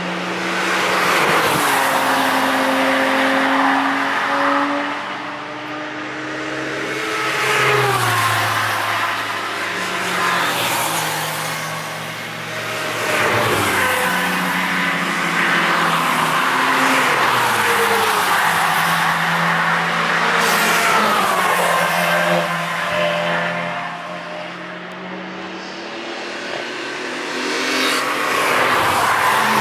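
A string of cars driven hard through a track corner one after another, among them a Porsche 911 and Renault Clios. Their engine notes overlap and repeatedly fall and rise in pitch, with the sound swelling and easing between passes.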